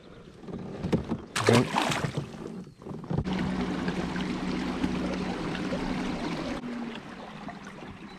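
Fishing kayak underway: water rushing along the hull with a steady low hum, which stops about two-thirds of the way through, leaving softer water noise. A brief loud burst of noise comes about a second and a half in.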